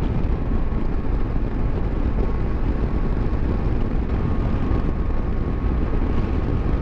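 BMW F700GS motorcycle on the move at road speed: a steady rush of wind on the microphone over the running engine and road noise.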